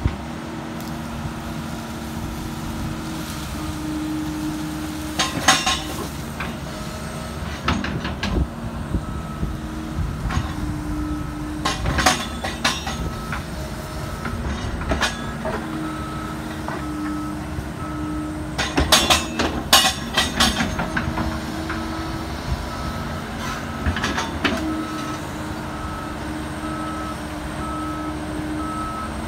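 Kobelco SK170LC-10 hydraulic excavator working a ditch: steady engine and hydraulic hum that shifts in pitch as the boom and bucket move, with sharp clanks of the bucket every few seconds. From about a third of the way in, a high beep repeats roughly once a second.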